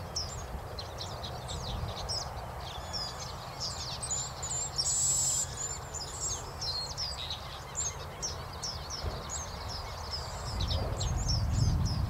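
White-browed blackbirds singing: many short high chirps, with one harsh buzzy note about five seconds in.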